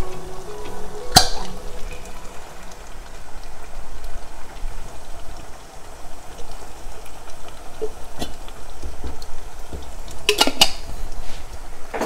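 Beef mince simmering and sizzling steadily in a pot while thick ragu sauce is poured in from a jar and stirred in. A sharp clink about a second in and a few quick knocks near the end, of the spatula and jar against the pot.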